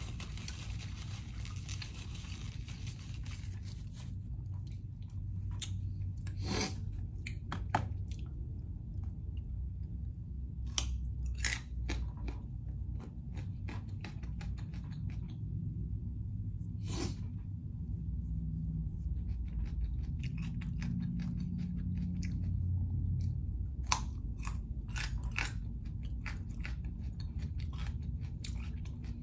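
Close-miked chewing and crunching of raw carrot sticks, with sharp crunches scattered throughout. A paper napkin rustles for the first few seconds.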